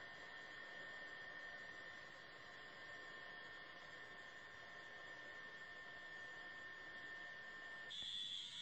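Faint steady electrical hum with a thin high-pitched whine over it; near the end the whine cuts off and a higher-pitched steady tone takes its place.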